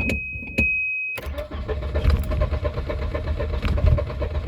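Volvo 240's starter cranking the engine for about four seconds without it catching: a no-start, with the fuel pump running on a relay bypass, which the owner puts down to a faulty coolant temperature sensor. Before the cranking begins about a second in, a steady high warning tone sounds with a few knocks.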